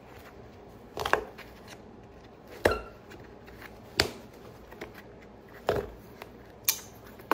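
A boot's leather midsole being pried and pulled off near the heel nails, giving five short, sharp snaps a second or so apart as it tears free.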